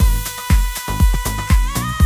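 Electronic dance music with a heavy kick drum about twice a second and a held synth note that slides in pitch near the end.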